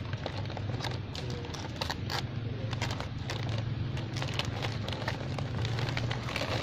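A plastic snack bag crinkling and crackling in a long-tailed macaque's hands and mouth, heard as many irregular sharp crackles over a steady low rumble.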